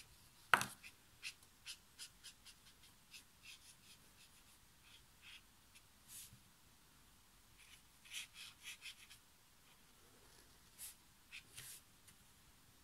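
Soft brush tip of an Ecoline watercolour brush pen stroking across cellulose watercolour paper in short, quick strokes that come in clusters. One sharp knock about half a second in is the loudest sound.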